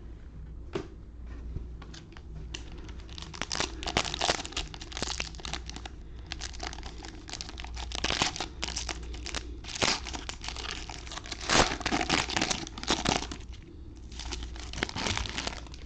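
Foil trading-card pack wrapper being crinkled and torn open by hand, in a run of irregular crackles that grows busier a few seconds in.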